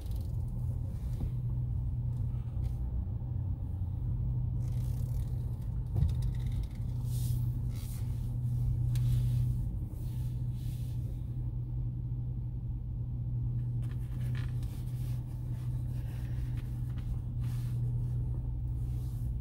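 Car interior noise while driving: a steady low rumble from the engine and tyres, with a brief knock about six seconds in.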